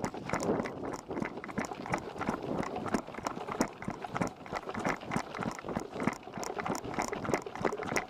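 Running footsteps: a quick, steady run of footfalls, several a second.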